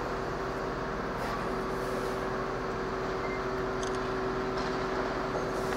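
Mobile crane's engine running steadily under load while lifting, a continuous drone with a steady whine held at one pitch.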